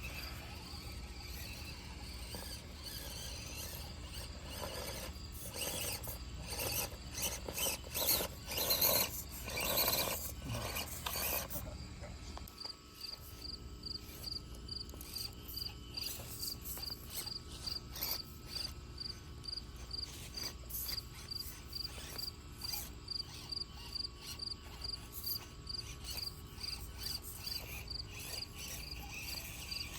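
A cricket chirping in a steady rhythm, a few chirps a second, plainest in the second half. Over the first half come several seconds of irregular scraping and rustling.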